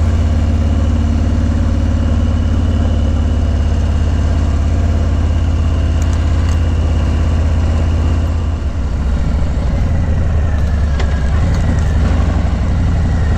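Harley-Davidson Low Rider S's Milwaukee-Eight 114 V-twin running steadily at low speed under load; about eight and a half seconds in the engine note dips and changes, then steadies again.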